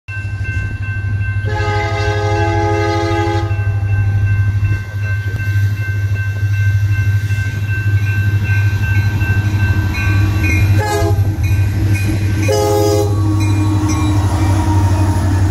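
Union Pacific diesel freight locomotives approaching a level crossing with a loud, steady low rumble, sounding the horn: one long blast about a second and a half in, then two shorter blasts near the end as the lead units reach the crossing. The crossing's warning bell rings steadily underneath.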